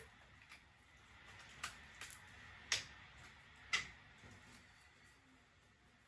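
A handful of separate light clicks or taps, about six, spaced unevenly over faint room hiss; the two loudest come about a second apart in the middle.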